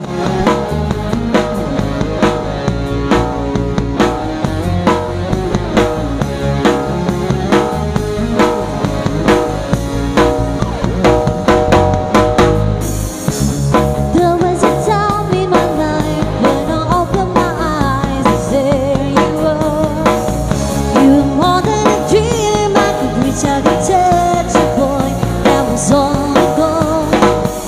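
Instrumental intro of a pop band song, with a drum kit keeping a steady beat under bass and melody. About halfway in the sound fills out, with a wavering lead line on top.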